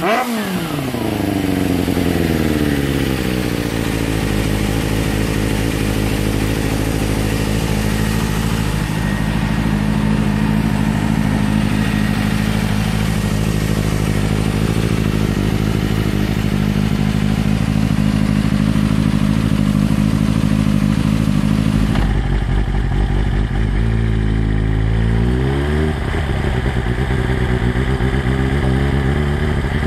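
Suzuki Bandit 250's inline-four engine, with a black slip-on silencer, dropping from a blip of the throttle into a steady idle. About 22 seconds in the sound changes abruptly, and a few seconds later a motorcycle engine revs up as it pulls away, then runs steadily.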